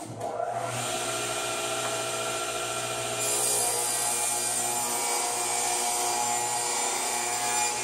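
Table saw running and ripping a piece of plywood: a steady motor and blade hum under the hiss of the cut, which grows brighter about three seconds in as the board is pushed through the blade.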